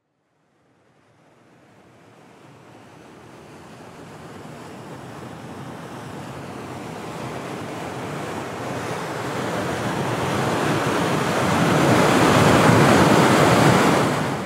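Rushing water of a large waterfall, fading in from silence and growing steadily louder for about twelve seconds, then dropping away sharply near the end.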